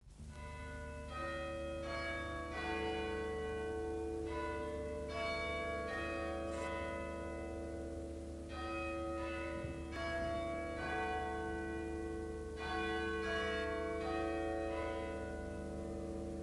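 Intro of a song: bell-like tones struck one after another, roughly once a second, each left to ring on under the next, over a steady low drone.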